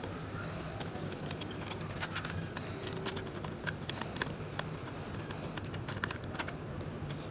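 Irregular light clicks and taps of small hard laptop parts and screws being handled and fitted, over a steady low hum.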